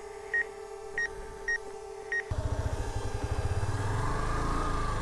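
Drone remote controller beeping about twice a second with its low-battery warning, over a steady hum from the drone hovering nearby. About two seconds in this gives way abruptly to the Yamaha FZS's single-cylinder motorcycle engine running as it rides along, much louder.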